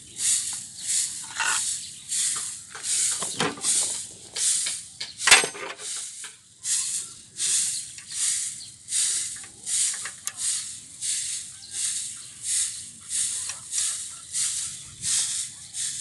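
Rhythmic high hissing swishes, about one and a half to two a second, with a couple of knocks a few seconds in and one sharp metallic click about five seconds in: a wrench on the rocker-arm adjuster's lock nut as the intake valve clearance is set.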